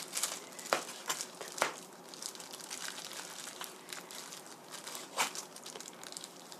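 Chef's knife slicing raw pork neck thinly, the blade knocking sharply on a plastic cutting board several times, with crinkling of plastic gloves in between.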